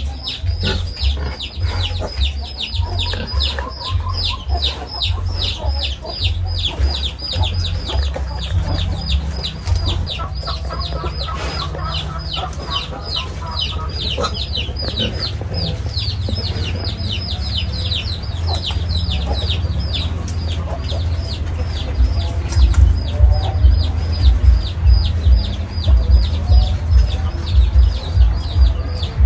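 Chicks peeping, a fast, even run of short high falling peeps, several a second, over a low rumble. Louder low thumps come in over the last third.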